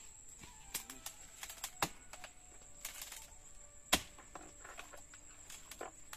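Scattered sharp snaps and crackles of dry palmyra palm leaf stalks being cut and pulled away at the base of a young palm, the loudest about four seconds in, over a faint steady high-pitched whine.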